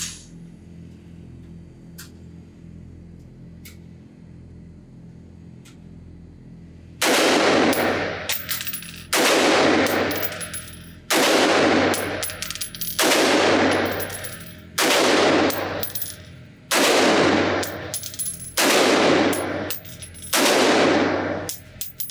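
Sig Sauer M400 AR-15 pistol in 5.56 fired in slow, steady single shots inside an indoor range. Eight shots come about two seconds apart, starting about seven seconds in, and each rings out in a long echo off the range walls. Before the shooting there is only a low steady hum with a few faint clicks.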